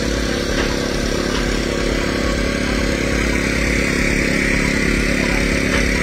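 Small engine running steadily at a constant speed, the kind that drives rescuers' generators and steel-cutting tools. A higher steady hiss joins about halfway through.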